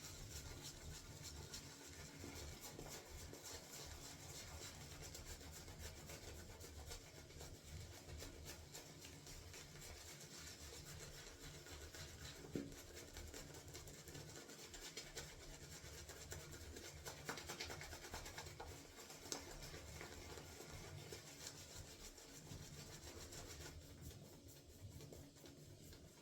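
Shaving brush working a thick shaving soap into lather, a faint, steady rubbing that runs on without pause.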